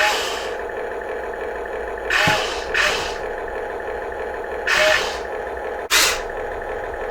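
Radio-controlled construction machinery running with a steady mechanical whine, broken by short bursts of hissing, scraping noise every second or two.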